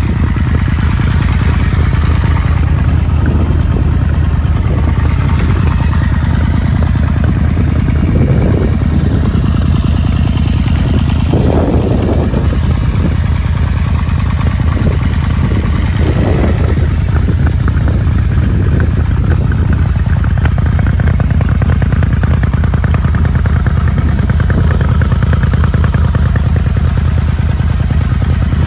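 Yamaha V-Max's water-cooled four-stroke four-cylinder engine running steadily at idle, an engine the seller describes as in good condition.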